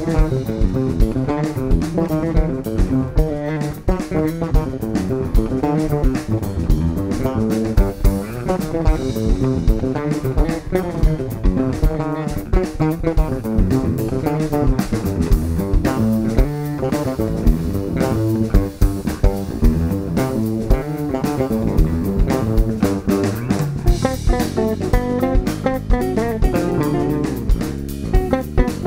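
Instrumental band music led by bass guitar, with a drum kit keeping a steady beat and no singing.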